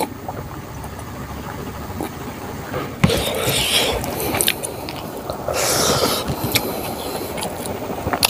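A hand mixing and scraping rice across a leaf plate, heard as two spells of rustling scrape. The first follows a sharp tap about three seconds in, and the second comes a little after five seconds.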